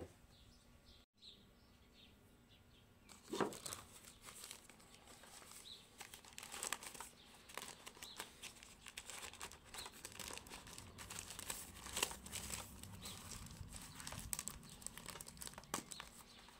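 Thin plastic bag and protective film crinkling as a router is unwrapped by hand. The crinkling is dense from about six seconds in, and there is one knock a little over three seconds in.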